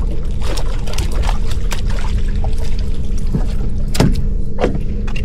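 Water splashing and knocking at the side of a small boat as a hooked stingray is brought up and scooped into a landing net: a string of short, irregular splashes, the sharpest about four seconds in, over a steady low rumble.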